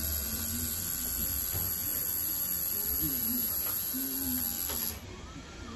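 Electric tattoo machine running with a steady high-pitched whine, cutting off suddenly about five seconds in.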